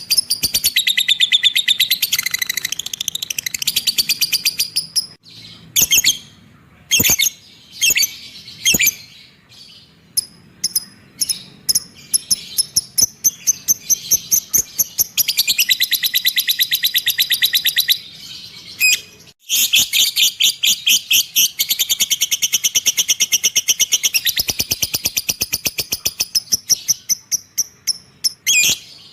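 Lovebird ngekek: long, rapid, high-pitched chattering trills made of fast repeated notes, broken by a few short pauses.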